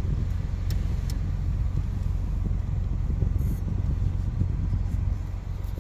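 Low, steady rumble of a car's engine and drivetrain heard from inside the cabin as the car rolls slowly forward, with two faint ticks about a second in.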